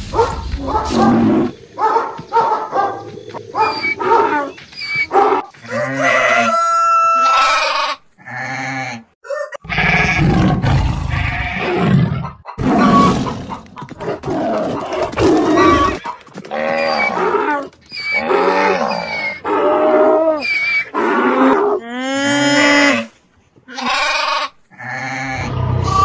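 A run of recorded animal calls of various farm and wild animals, one after another, each a second or two long, with a short break about eight seconds in.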